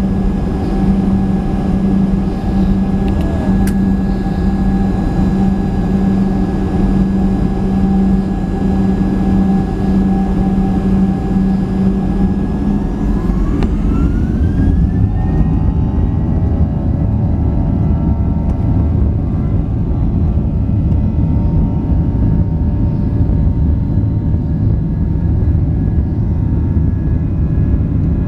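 Boeing 737-800's CFM56-7B jet engines heard from inside the cabin, running low at first, then spooling up to takeoff thrust about halfway through: a whine rising steeply in pitch over a few seconds and settling into a steady high whine. Under it is the deeper rumble of the takeoff roll, which grows louder once the engines are at power.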